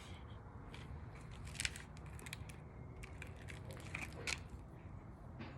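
Casablanca Waliea ceiling fan running forward on low speed: a steady low hum, with a few short sharp clicks, the strongest about a second and a half in and past four seconds in.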